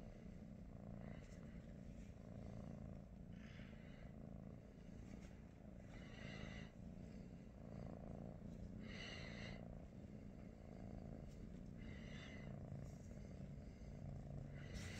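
Domestic cat purring steadily and softly, the purr swelling and fading about once a second with its breathing.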